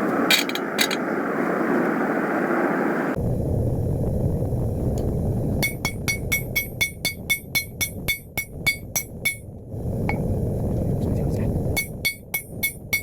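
Hand hammer striking hot 5160 leaf-spring steel on an anvil to draw out the blade: fast runs of blows, about four a second, each with a short metallic ring. There is a steady rushing noise in the first three seconds, then a pause between the two runs of blows.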